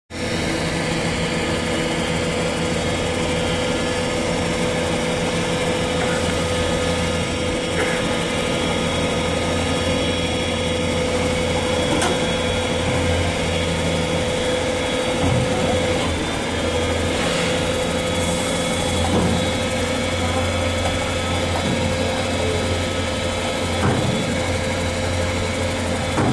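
Small electric hydraulic pump motor of an electric garbage tricycle running with a steady whine as it tips the rear garbage bin up.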